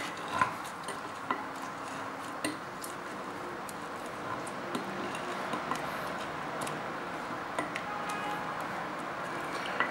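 Wooden muddler pressed gently into lime pieces in a glass tumbler, a soft steady grinding with scattered light clicks of wood against the glass.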